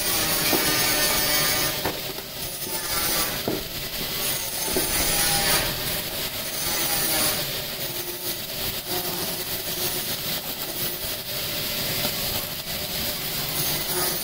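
A power buffing wheel grinding against stainless steel, a continuous harsh rasping hiss with faint whining tones that swells and eases as the metal is pressed to the wheel.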